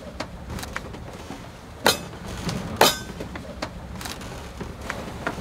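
Loose objects knocking and clinking in a catamaran's cabin as the boat moves under way: scattered sharp knocks, the two loudest about a second apart near the middle, over a steady low rumble.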